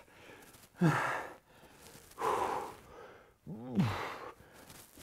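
A man's heavy, breathy exhales of exertion during a dead bug core exercise, three of them about a second apart; the last is voiced like a grunting sigh.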